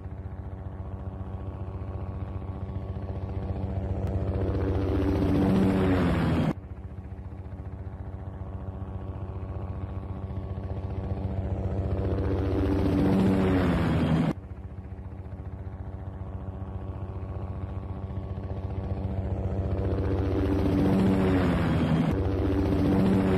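Helicopter flying in, its rotor beating and growing steadily louder, the pitch bending as it comes close. The sound cuts off abruptly twice and starts again quieter, three passes in all, the last one loudest near the end.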